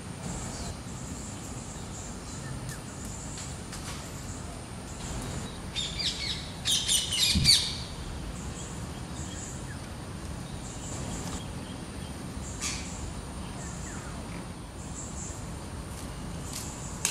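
Rose-ringed parakeets calling: a quick run of loud, high-pitched calls about six seconds in, lasting under two seconds. Faint high chirping repeats in the background.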